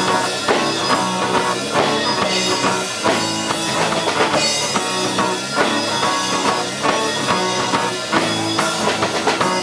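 Live rock band playing an instrumental passage with no vocals: a Pearl drum kit keeping a steady beat under electric bass and the singer's guitar.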